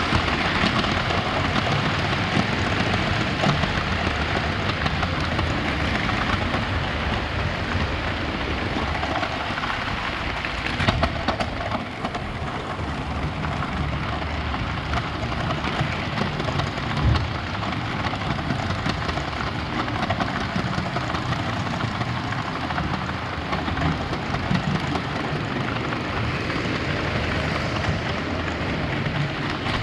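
Lego 9V train running on plastic track, a steady rattling rumble with a few sharper knocks.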